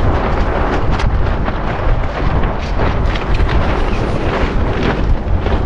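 Loud wind buffeting the microphone aboard a racing sailboat under sail, a deep rumbling rush with a few sharp clicks from the deck gear.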